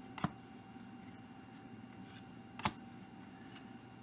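Trading cards being handled and flipped through a pack, with faint rustling and two sharp snaps of card against card about two and a half seconds apart.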